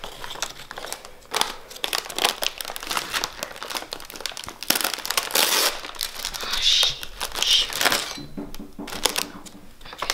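Crinkly plastic Oreo package and its tray rustling and crackling irregularly as hands dig cookies out of it.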